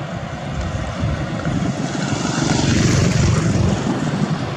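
Airbus A321 jet engines at takeoff thrust during the takeoff roll, a deep roar with a hissing top that grows louder as the airliner approaches, peaking about three seconds in and then easing slightly.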